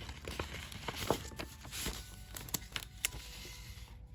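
Rustling of sticker sheets and packaging being handled, with many small sharp clicks and taps scattered through it.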